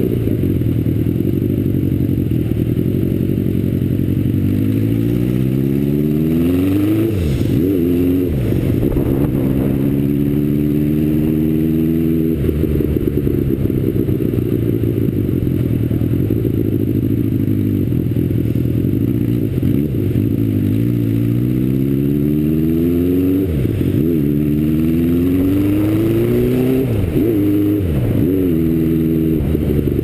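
Motorcycle engine heard from the rider's seat, pulling up through the gears with the pitch rising and dropping at each shift, easing off, then accelerating up through the gears again in the second half.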